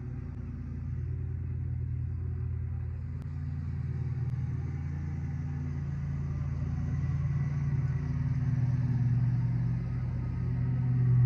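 A steady low rumble with a deep hum that changes pitch now and then and grows louder toward the end.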